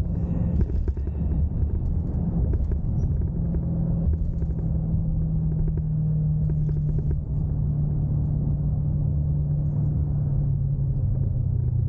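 The 2022 Dodge Durango SRT 392's 6.4-litre Hemi V8 running steadily at low revs, its note slowly dropping in pitch over the stretch.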